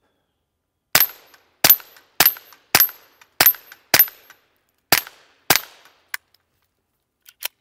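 Sig P322 .22 LR pistol fired in a quick string of eight shots, with a short high ring after most of them. About a second after the last shot comes a single faint click with no report, a misfire that the shooter puts down to a light primer strike.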